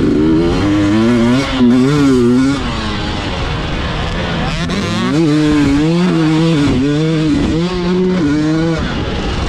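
Two-stroke enduro dirt bike engine revving hard, its pitch climbing and dropping in quick waves as the rider opens and closes the throttle. About three seconds in the revs die away briefly, then from about five seconds the engine winds up again over and over.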